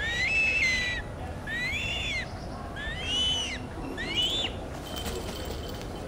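A bird calling: four high whistled calls about a second apart, each rising, holding and then falling in pitch, the later calls shorter and higher.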